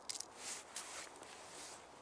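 Short rustles and small clicks of hands handling fishing gear, with the fabric of a padded winter suit moving.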